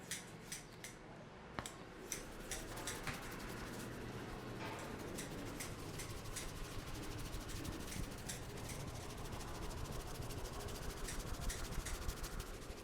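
Hands rubbing and working over a head and hair during an Indian head massage: a steady rubbing noise with many quick, sharp clicks and snaps, thickest near the end.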